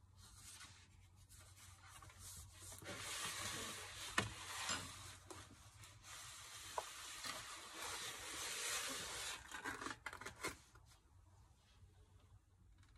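Paper rustling and rubbing as the pages of a Seawhite concertina sketchbook are handled, turned and pulled open, with a few soft taps and clicks. It is busiest in the middle, and the book is folded shut near the end.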